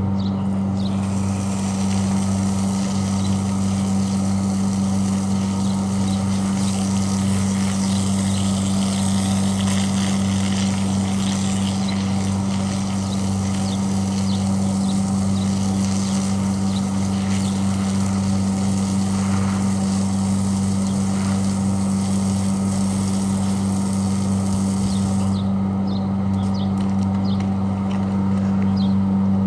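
Water spraying from a garden hose onto a concrete rooftop and wall, a steady hiss that starts about a second in and stops a few seconds before the end. Under it runs a steady low mechanical hum.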